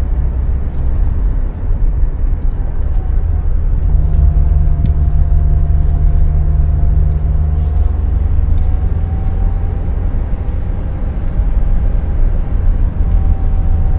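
Steady low engine and tyre rumble of a moving car, heard from inside the cabin, with a faint steady whine above it.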